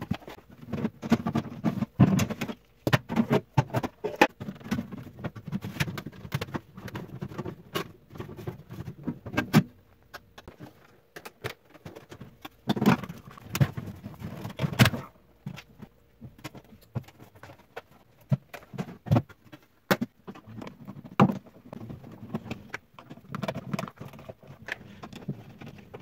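Plastic refrigerator shelves, drawer and parts being pulled out and handled: irregular clicks, knocks and rattles of plastic, with a few louder knocks about halfway through.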